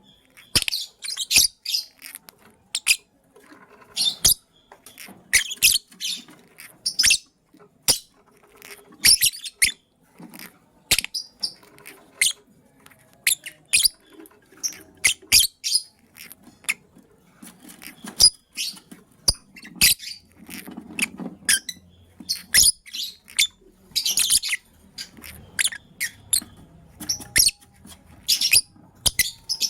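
Lovebirds chirping: a dense, irregular run of short, sharp, high-pitched chirps and squeaks, mixed with quick clicks.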